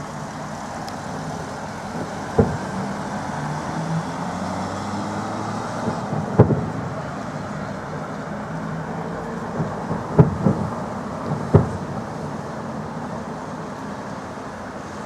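Fireworks salute bursting overhead: a string of sharp bangs, the loudest about two and a half, six and a half, ten and eleven and a half seconds in, over steady background noise.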